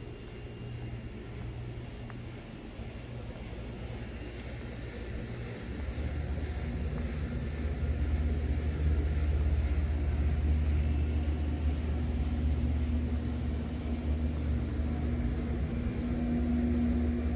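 A steady low mechanical hum with a faint higher tone in it, coming in about six seconds in and staying loud, swelling briefly near the end.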